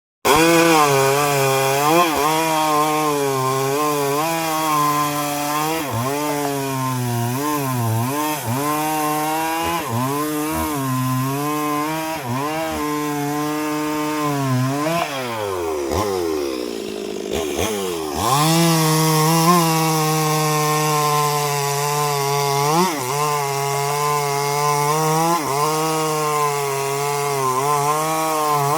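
Chainsaw cutting wood, its engine pitch dipping and recovering again and again as the chain bites. About halfway the engine winds down steeply, then revs back up and runs high and steady.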